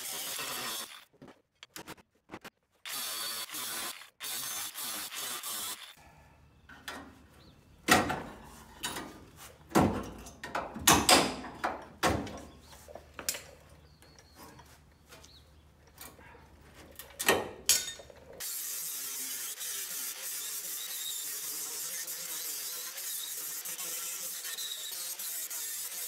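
Angle grinder with a coarse 36-grit disc grinding out the welds that hold a 1/8-inch steel plate to the chassis: a steady high hiss, cut off abruptly several times in the first few seconds. In the middle comes a run of sharp metal knocks and clanks as the plate is worked loose, then the grinder runs steadily again.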